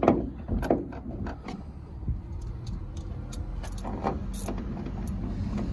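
Hand tools working on a pickup's overhead cab trim: a run of short knocks and clicks, most of them in the first couple of seconds and a few more near the end, over a low steady rumble.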